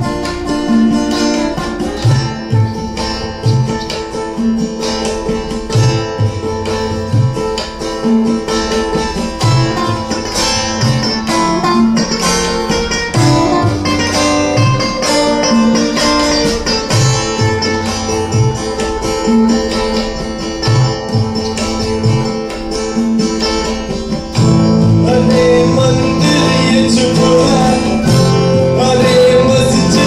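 Live acoustic band music: several acoustic guitars playing together over low tabla strokes about once a second. About 24 seconds in, the music gets louder and fuller and a voice comes in singing.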